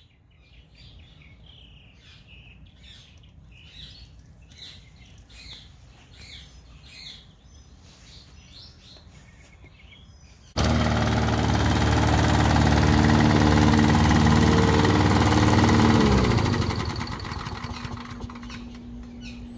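Birds chirping for about the first half. Then a Briggs & Stratton 6.5 hp mower engine comes in suddenly and runs steadily. About five seconds later its pitch falls and it winds down, shut off by a metal-object sensor wired to the ignition.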